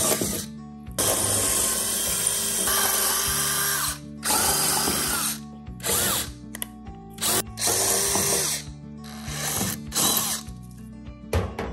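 Power drill boring 5/32-inch holes through a steel windshield frame, running in a series of loud stop-start runs: a long run of about three seconds, then shorter bursts with pauses between them as the bit is moved from hole to hole.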